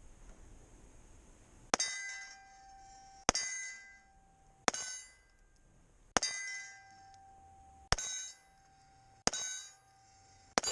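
Seven pistol shots at a slow, even pace about a second and a half apart. Each is followed by the short ring of a steel plate on the plate rack being hit.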